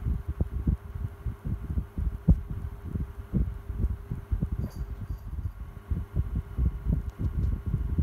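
Tronic electric desk fan running, its airflow buffeting in an uneven low rumble over a steady motor hum.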